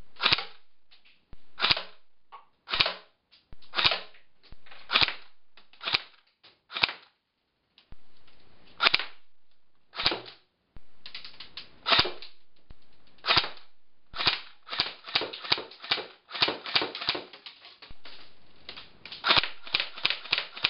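Airsoft gun being fired repeatedly at targets: sharp cracks about once a second at first, then quicker strings of several shots in the second half, with fainter ticks between them.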